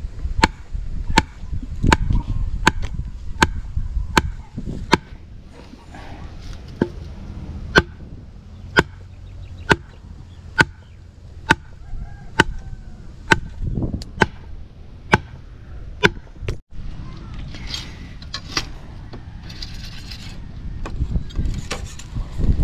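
Machete chopping steadily into the ground at the base of a trellis post, a sharp hit with a brief metallic ring about every three-quarters of a second. After a cut near the end, the blade swishes through leafy weeds.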